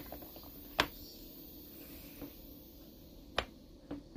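Watermelon being bitten and chewed close to the microphone: a few sharp crunching clicks, the strongest about a second in and again a little past three seconds.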